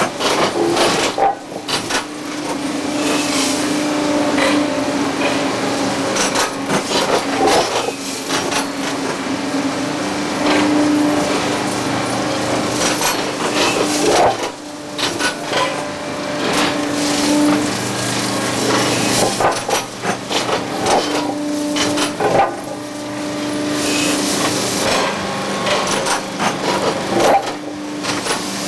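Track-renewal machine at work laying concrete railroad ties: a steady mechanical hum that swells and fades, under frequent irregular clanks, knocks and scraping of ties and steel.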